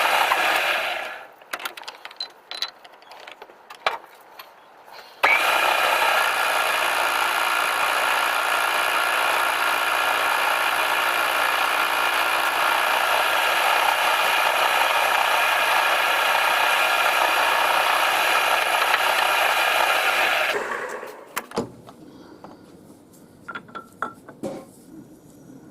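Workshop machine motor running steadily with a mechanical whine. It stops about a second in, is switched on again abruptly about five seconds in, and winds down about twenty seconds in, with small clicks and knocks of handling in the quieter gaps.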